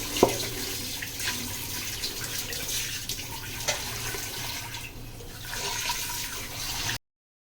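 Running and splashing water as a wet grinder's drum is rinsed out, with a sharp knock just after the start and a few lighter clicks. The sound stops abruptly near the end.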